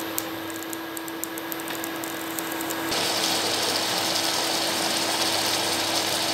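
Spatula stirring in a wok with faint clicks over a steady hum. About three seconds in, this gives way to a louder, steady sizzling bubble as the fish curry boils down in the wok.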